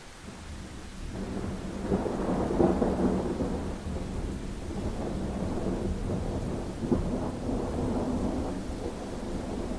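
Thunder rumbling over steady rain. The rumble builds about a second in, peaks with a loud crack about two seconds in, and rolls on with another sharp crack later.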